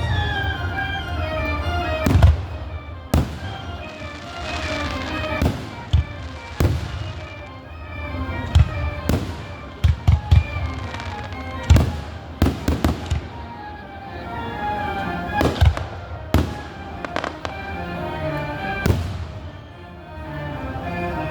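Fireworks display: aerial shells bursting with sharp booms every second or so, sometimes two or three in quick succession, over music with a clear melody.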